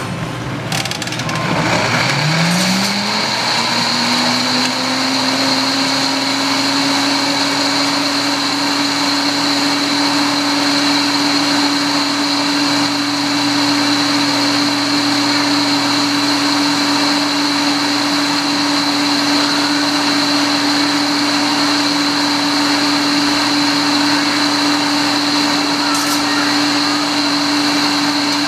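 Countertop blender motor starting about a second in, spinning up with a quick rising whine, then running steadily at high speed while puréeing boiled red chiles into a sauce.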